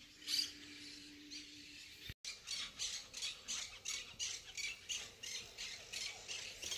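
Birds squawking in a quick repeated series, about three short calls a second, starting after a brief cut about two seconds in. Before the cut there is only a faint steady hum.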